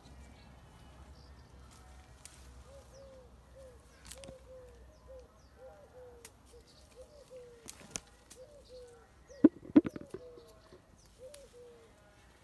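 A bird repeatedly giving short low notes, each rising then falling, in loose runs of roughly two a second. Scattered sharp clicks and knocks of plum-tree branches and fruit being handled, the loudest a pair of knocks about three quarters of the way through.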